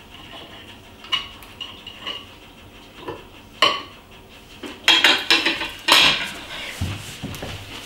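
Forks and knives clinking and scraping on dinner plates as two people eat: single sharp clinks about a second in and again at three and a half seconds, then a busier run of clatter around five to six seconds.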